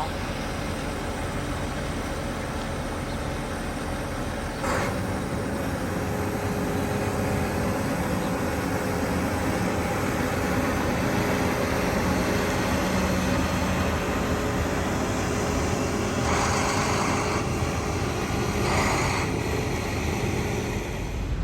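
A motor vehicle running steadily with a constant engine hum, broken by a few short rushes of hissing noise.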